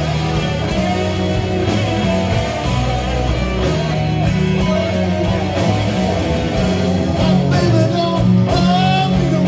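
Live blues-rock band playing, with electric guitar to the fore; the guitar bends notes toward the end.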